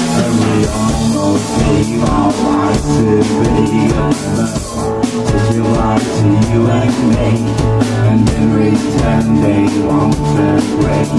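A rock band playing live on drum kit and guitars, with steady, regular drum strokes.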